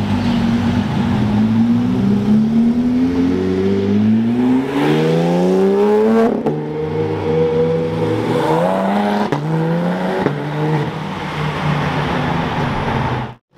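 Porsche 911 GT3 RS and GT3 naturally aspirated flat-six engines accelerating away. The pitch climbs steadily for several seconds, then drops back and climbs again several times as they shift up through the gears.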